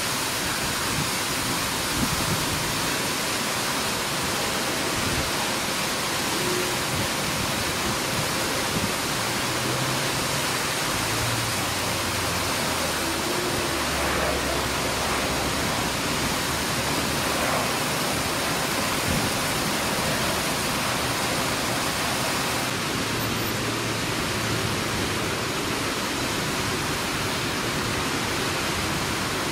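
Steady, even hiss of heavy rain. A faint low engine hum from the turboprop airliners comes and goes beneath it, about halfway through and again near the end.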